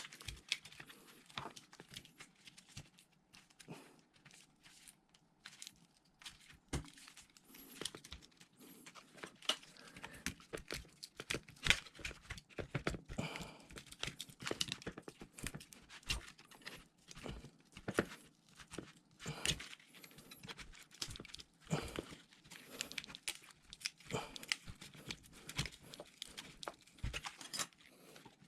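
Hands working on the battery of an opened MacBook Pro: a continuous run of irregular small clicks, scrapes and crinkling, tearing sounds.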